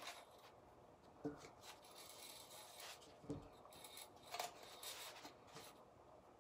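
Faint rubbing and rustling of baker's twine being pulled through a hole in a thin tin roof tile and drawn across a tabletop, with a few soft taps.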